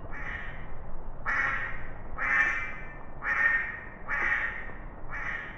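Duck quacking: six single quacks, about one a second.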